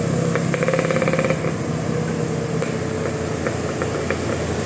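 Vehicle engine running steadily, with a rapid rattling clatter for about the first second and a slowly falling engine tone.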